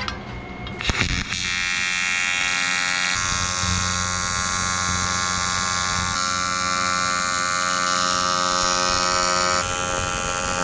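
A couple of knocks of metal being handled, then about a second in a TIG welding arc strikes and buzzes steadily with the high, many-toned hum of AC welding on aluminium, as a bead is laid on the radiator's end tank.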